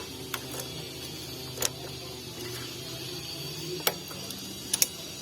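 Several short, sharp clicks and knocks, scattered and irregular, over a steady low hum, like small mechanical parts being handled.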